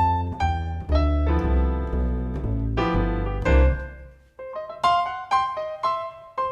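Background music: piano notes over a low bass line; the bass drops out about four seconds in, leaving the piano alone.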